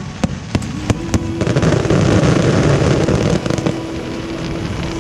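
Fireworks going off: a few separate sharp bangs, then from about a second and a half in a dense, continuous crackle.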